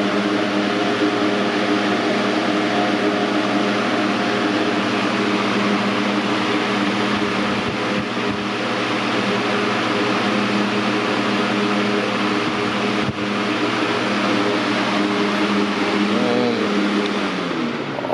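Air King model 9723 box fan running on high speed: a steady whoosh of air with an even motor hum. Near the end the hum drops in pitch as the fan begins to slow down.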